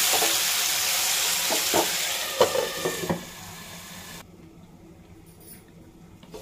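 Chopped tomatoes, garlic, cashews and green chillies sizzling in hot oil in a nonstick pan while being stirred with a silicone spatula, with a few sharp knocks and clinks about two to three seconds in. The sizzle then drops as the pan is covered with its glass lid, and after a sudden cut about four seconds in only a faint, dull hiss remains.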